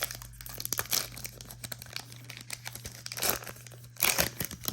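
Plastic-foil trading-card pack wrapper crinkling and being torn open, in irregular rustling bursts that are loudest near the end.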